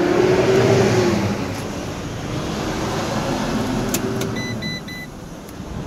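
Van's engine running, heard from inside the cab, with three short electronic dashboard warning beeps about four and a half seconds in.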